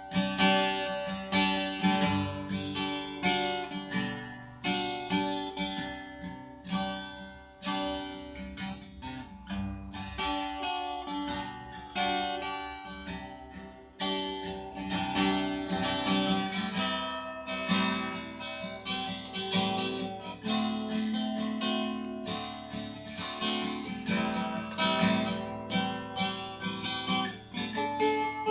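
White Taylor-replica cutaway acoustic guitar played fingerstyle, a continuous run of picked notes and chords.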